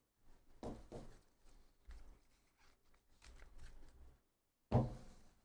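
Trading cards being handled and sorted on a table: scattered rustles and light taps, with one louder knock near the end.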